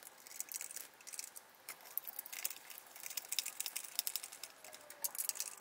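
Faint, irregular clicks and ticks of a hand screwdriver turning a small screw through a metal angle bracket into particleboard.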